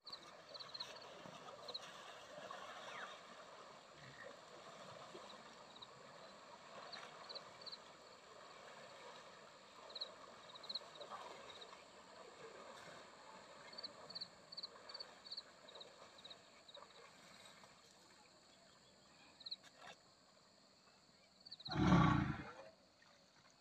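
Small birds chirping in short high bursts over a quiet riverside background, then near the end a single loud, low Asian elephant call lasting about a second.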